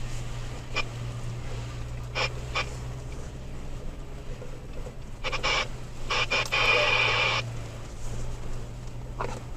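Cabin drone of a Toyota Tacoma driving a rough off-road trail, with scattered knocks and rattles. Crackling bursts of two-way radio static about five seconds in, the loudest part, as the radio picks up broken transmissions.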